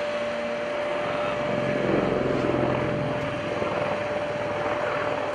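AgustaWestland AW159 Wildcat helicopter flying overhead in a display: rotor and twin-turboshaft engine noise with a steady whine, swelling briefly about two seconds in.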